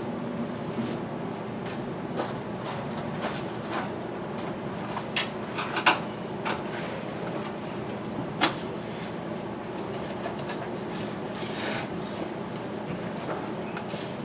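Scattered clicks and knocks of parts being handled and fitted, the sharpest about six and eight and a half seconds in, over a steady background hum.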